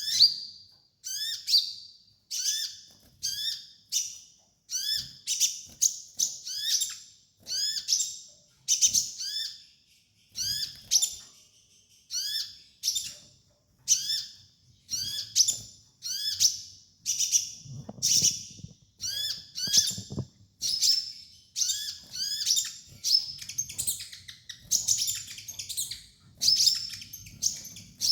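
Kolibri ninja sunbird singing a rapid, high chirping song, one short phrase about every second with a quick rising note under each burst of sharp high notes.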